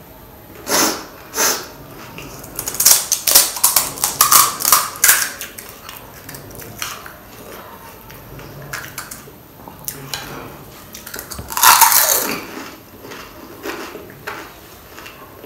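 Close-miked eating of crisp pani puri (golgappa): hollow fried shells crunch and crack in the mouth in a quick run of loud cracks a few seconds in, with another loud crunch near the end. Lighter clicks of a spoon in the bowl of filling come in between.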